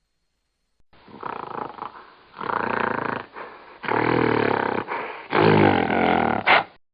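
A series of about five deep calls from a large animal sound effect, starting about a second in, with short gaps between them and a brief high squeal near the end.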